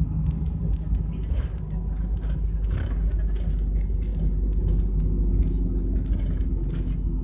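City bus in motion, heard from inside the cabin: a steady low engine and road rumble with frequent small rattles, and an engine drone that comes up more plainly about five seconds in.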